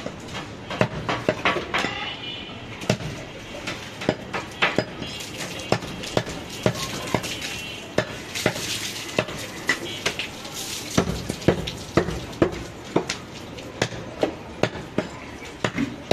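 Butcher's knife chopping mutton on a round wooden chopping block: repeated sharp chops and knocks at an uneven pace, about one or two a second, as meat and bone are cut through.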